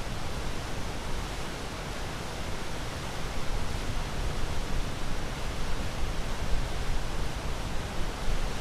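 Steady, even rushing of water, with no distinct waves breaking or swelling.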